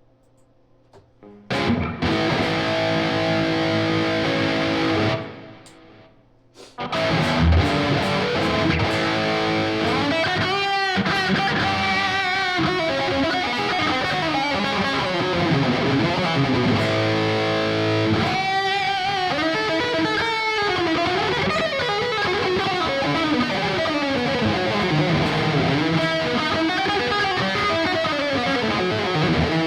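Ibanez AZ24S electric guitar being played. A chord rings out about a second and a half in and stops near 5 s. About 7 s in, continuous melodic lead lines begin, with bent and wavering notes.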